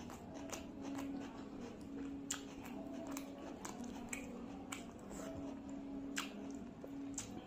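Close-miked eating by hand: wet squelching of fingers working rice and fish curry, with the sharp mouth clicks and smacks of chewing scattered throughout.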